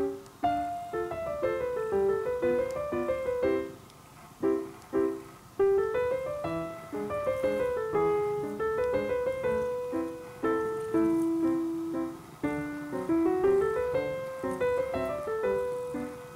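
Solo piano background music playing a light waltz melody of short, separate notes.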